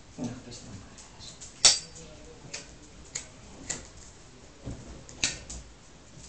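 A series of short, sharp clicks, about six of them at irregular spacing, the loudest about one and a half seconds in.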